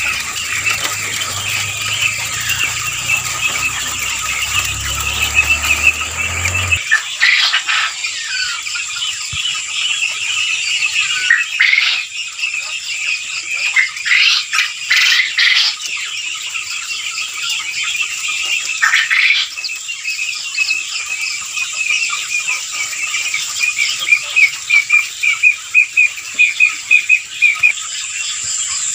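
A flock of caged Japanese quail chirping in a dense, continuous chatter. Louder calls break out several times in the middle, and near the end comes a run of quick repeated calls, about three a second.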